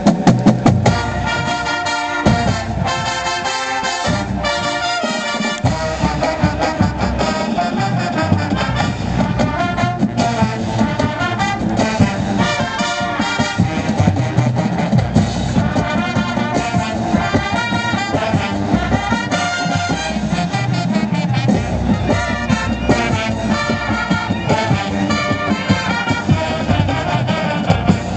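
Marching band playing loudly, brass carrying the tune over drums, starting abruptly at the outset and going on steadily.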